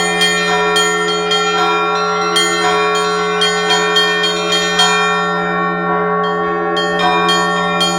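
Russian Orthodox church bells in a continuous festive peal: the small bells strike quickly and rhythmically, several strokes a second, over a steady low ringing that never dies away.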